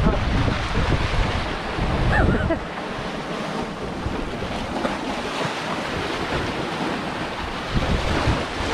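Sea waves washing, with wind buffeting the microphone in gusts, strongest over the first couple of seconds and again near the end.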